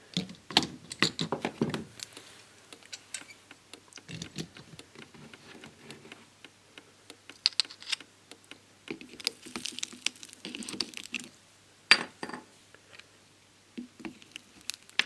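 Scattered clicks and taps of pliers and a circuit board against the metal of a molten-solder desoldering pot, with a sharp knock about twelve seconds in. Short patches of soft crackle come as the board is dipped into the molten solder.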